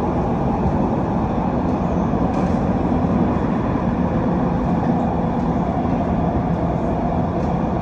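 Steady running noise inside a carriage of an SMRT MOVIA R151 metro train travelling underground between stations: the rumble of wheels on rail with a low, even hum underneath.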